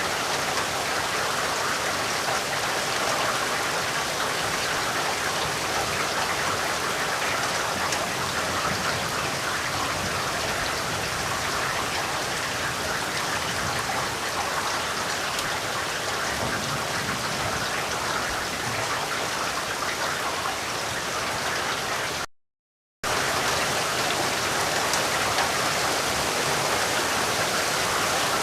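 Steady rain falling, a dense even hiss of drops. It cuts out to silence for under a second late on, then resumes.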